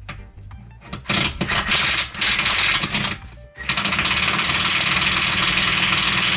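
Impact wrench hammering in two long runs, the first broken by a few short pauses and the second steady, as it drives a bolt in on a front lower control arm. Background music plays underneath.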